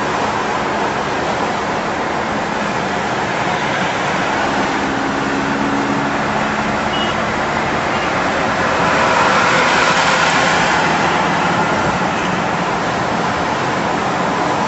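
Steady road noise heard from inside a moving vehicle on a highway: a constant rush of tyre, wind and engine sound, swelling louder for a couple of seconds past the middle.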